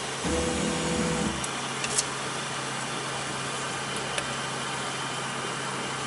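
UP! Mini 3D printer's stepper motors whirring for about a second as the print head travels to the next platform calibration point, over the printer's steady hum. Two faint clicks follow.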